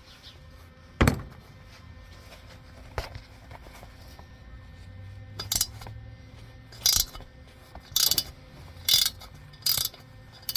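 Ratchet wrench clicking in short strokes, about six of them a second or so apart, as it backs out a broken steel stud by the bolt welded onto it. A sharp knock about a second in.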